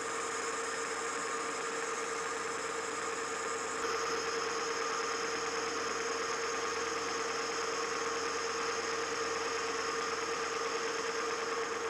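Metal lathe running steadily with a constant hum while a boring bar cuts inside a cast iron bushing's bore. About four seconds in, the sound grows a little louder and brighter.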